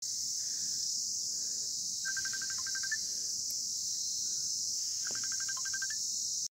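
Steady, high-pitched chorus of insects in a forest, with a small bird twice singing a short phrase of rapid repeated notes that ends on a higher note, about two and five seconds in.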